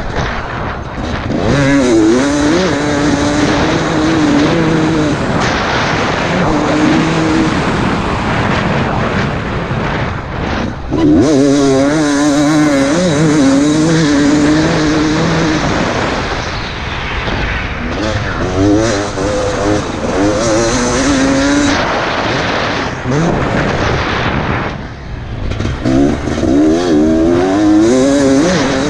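Motocross dirt bike engine revving hard and shifting as it is ridden around a track, heard onboard, its pitch climbing and dropping with the throttle. It backs off briefly about ten, sixteen and twenty-four seconds in before pulling hard again.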